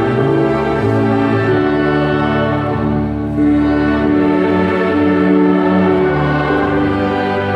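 Slow orchestral music with bowed strings holding sustained chords that change every second or so.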